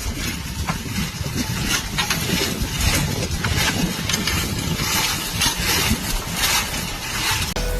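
A heavy machine's engine running with a steady low rumble, overlaid by irregular clanks and knocks throughout.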